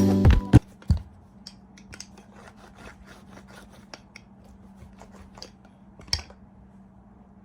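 Scissors snipping, a string of small irregular clicks and cuts with one louder snip near the end.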